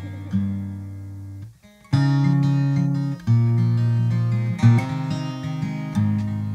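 Acoustic guitar music, chords strummed and let ring. It breaks off briefly about a second and a half in, then comes back in loud.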